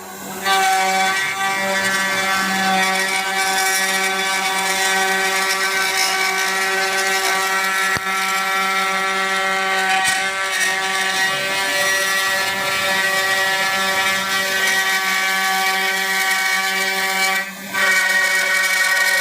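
CNC router spindle running steadily with a pitched whine while milling a wooden relief board, dipping briefly near the end.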